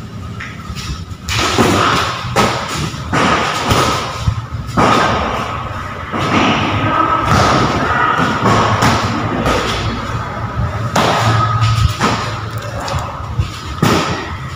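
Boxing-glove punches and kicks landing on a padded taekwondo chest protector and on arms, a run of irregular thuds.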